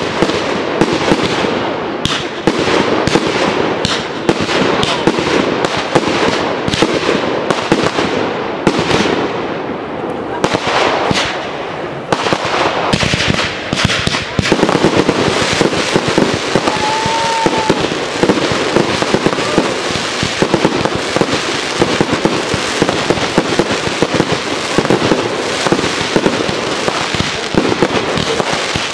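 Aerial fireworks display: a dense, unbroken run of bangs from bursting shells and cakes, mixed with crackling, growing into a thicker barrage in the second half. A short high whistle rises and falls a little past halfway.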